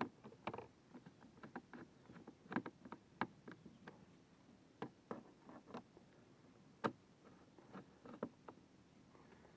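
Hand screwdriver turning screws into a mounting plate on a plastic kayak deck: faint, irregular small clicks and taps of the tool and screws.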